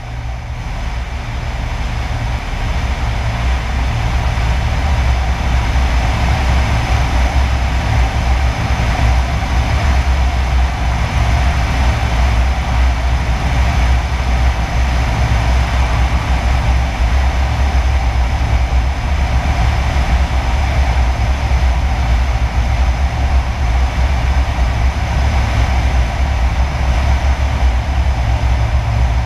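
Single-engine light aircraft's engine and propeller running steadily in flight, a low drone mixed with rushing airflow over the outside-mounted microphone. It fades in over the first few seconds.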